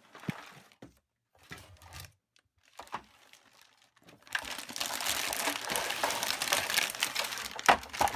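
A few light knocks and rustles of a cardboard box being handled. Then, from about four seconds in, a long stretch of thin plastic bag crinkling as it is pulled off a plastic toy van, with a couple of sharper clicks near the end.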